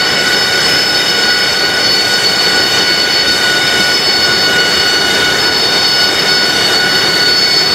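AV-8B Harrier II's Rolls-Royce Pegasus turbofan running steadily on the ground: a loud rushing noise with a high, even whine of several steady tones.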